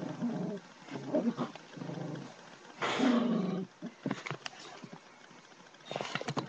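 Dog growling: a run of low growls, the longest and loudest about three seconds in, followed by a few sharp clicks and a noisy scuffle near the end.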